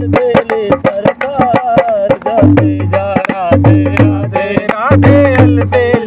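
Dholak, the two-headed barrel drum, played by hand in a quick rhythm, with recurring deep bass strokes under sharper slaps, accompanying a man singing a devotional bhajan.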